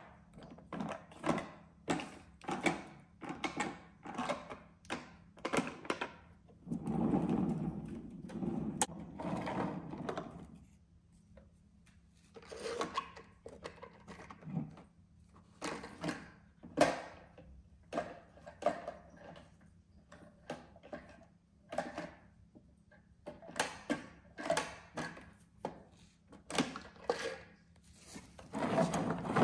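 Plastic toy garbage truck and toy bins handled by hand: a run of short plastic clacks and knocks, with a few seconds of continuous scraping noise about seven seconds in.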